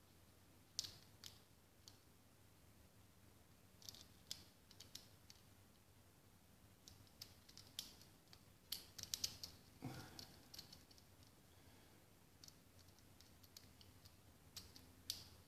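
Faint, irregular clicks of a lock pick and tension wrench working the pins inside a Tri-Circle 265 50 mm padlock, with a quick run of clicks about nine seconds in as the pick goes over the pins.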